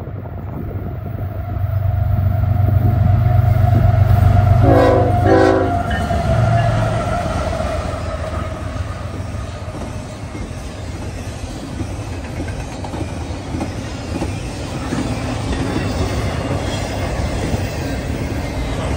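Freight train passing: a deep diesel locomotive rumble, then two short horn blasts about five seconds in. After that, the steady rumble and wheel clatter of double-stack intermodal cars rolling by.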